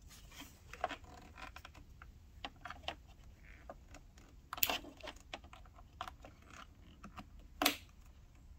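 Multimeter test leads being handled and their alligator clips clicking onto motorcycle battery terminals: faint scattered clicks and small rattles, with two sharper clicks about halfway through and near the end.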